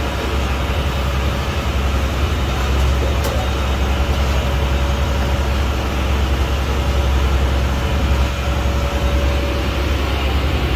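Fishing boat's engine running, a steady low drone.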